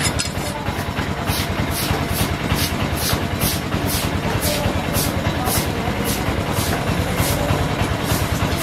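Rhythmic knife-scraping strokes on a large trevally, about three a second, over a steady low rumble of engines.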